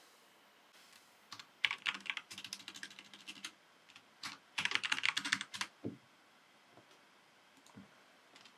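Computer keyboard typing in two runs of keystrokes: one starting about a second and a half in, and a quicker flurry around five seconds in, ending with a single key press.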